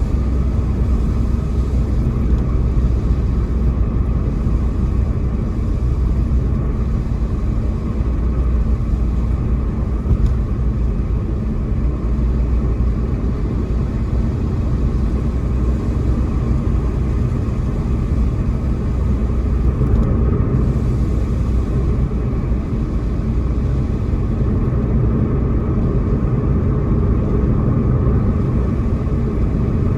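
A car driving: a steady low rumble of road and tyre noise with engine hum that holds even throughout.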